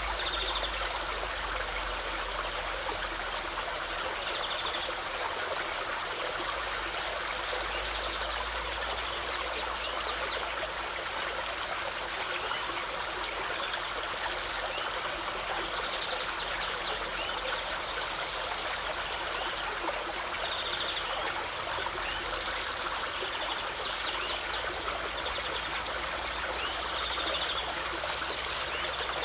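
River water running steadily: a continuous, even rush of flowing water, with faint short high chirps now and then.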